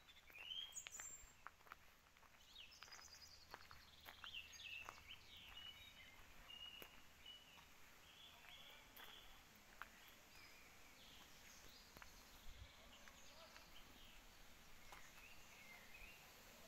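Faint birdsong: many short chirps and calls from woodland birds, with a few soft footsteps on gravel in the first few seconds.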